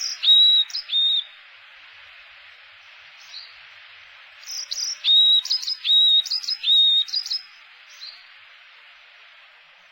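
Small songbird calling: clear, high whistled notes, a short group at the start and a longer run in the middle, over a steady background hiss.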